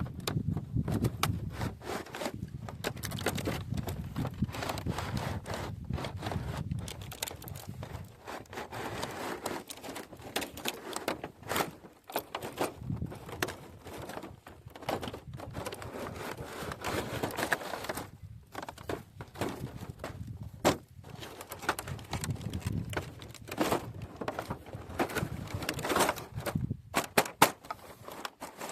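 Hands handling a plastic toy train and its packaging: irregular crackling, rustling and clicks.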